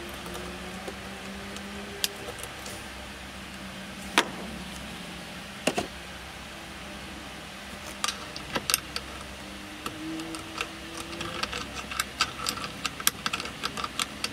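Small clicks and taps of hands handling wiring, a terminal block and connectors: a few single clicks at first, then a quick run of them in the second half. Under them runs a steady low hum.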